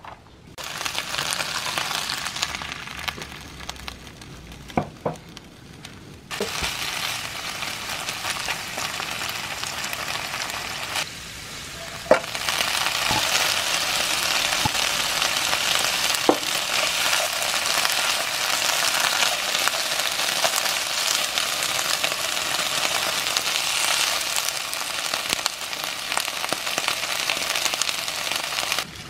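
Blanched bracken fern stir-frying in vegetable oil in a wok: a steady sizzle that grows louder partway through, with a few sharp clicks.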